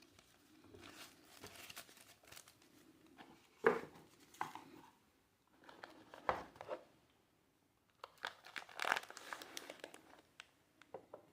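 Packaging being handled: crinkling and rustling in several spells, with a sharp click about a third of the way in.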